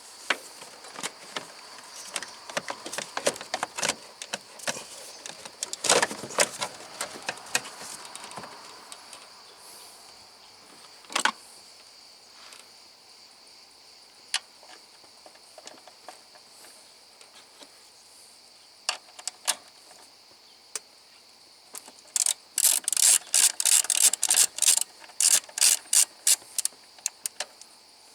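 Scattered clicks and knocks of hand tools and parts being handled, with a run of rapid sharp clicks near the end, like a ratchet being worked. Insects chirp steadily in the background.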